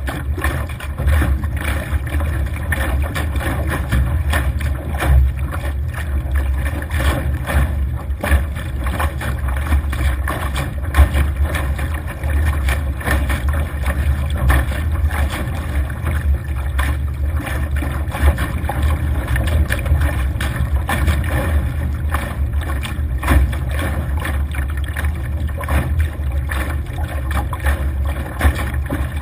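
Wind buffeting the microphone in a steady low rumble, with water rushing and splashing irregularly against a Laser dinghy's hull as it sails through choppy water.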